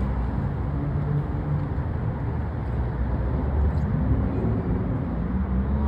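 A steady low rumble like a nearby engine or traffic, with a faint low tone that rises in pitch about four seconds in.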